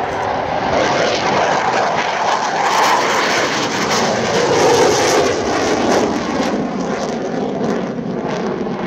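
Twin GE F404 turbofan engines of a CF-188B Hornet fighter jet at high power as it climbs past low overhead. The noise builds to its loudest about halfway through, with its pitch falling as the jet passes.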